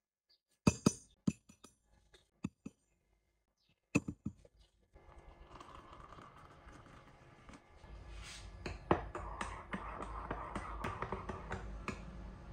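A few sharp clinks and knocks of hard items being handled, separated by near silence. About five seconds in, soft background music begins and runs under further clinks.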